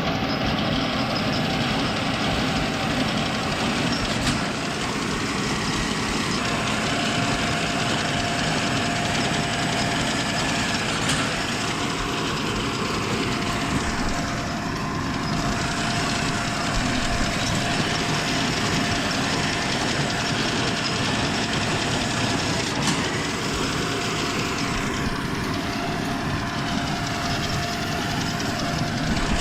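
Tractor pulling a New Holland small square baler, engine and baler running steadily, with a few sharp clicks.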